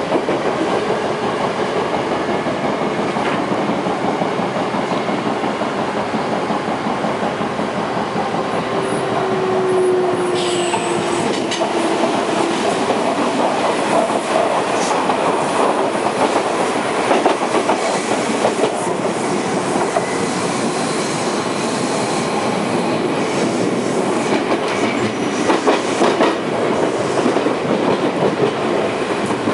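Odakyu 1000 series electric train heard from inside the passenger car while running: a steady rolling noise of wheels on rails, with a brief low tone about nine seconds in and a few sharp clicks near the end.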